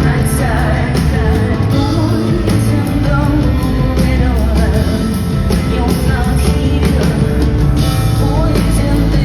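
Live concert music with a woman singing over loud, steady instrumental accompaniment.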